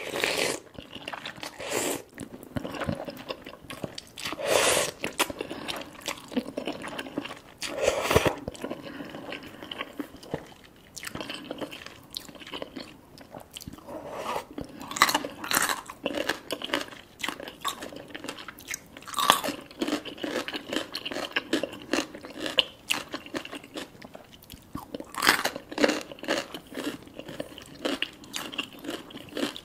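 Close-miked eating of spicy ramen noodles: wet slurps and chewing. The longest, loudest slurps come near the start and around four and eight seconds in, followed by a steady run of shorter chewing and mouth sounds.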